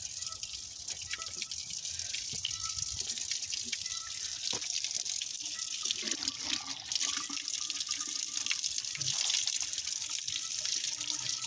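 Artesian well water pouring steadily from a metal pipe spout and splashing onto a metal grate in a stone basin.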